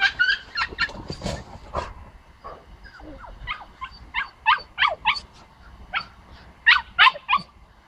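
Pomsky puppy yapping in a string of short, high barks and yips, one after another through the stretch, the loudest near the end.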